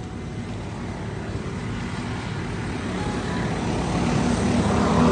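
A motor vehicle on the highway drawing nearer, its engine hum and road noise growing steadily louder.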